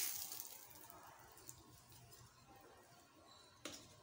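Hot tempering oil (tadka) with cumin, curry leaves and red chillies sizzling as it is poured onto radish chutney, loud at first and fading to a faint hiss. A single short knock near the end.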